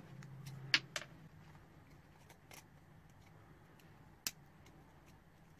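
A few faint, sparse metallic clicks and ticks from small hand tools picking at a broken tap stuck in a threaded hole, trying to work the fragment loose.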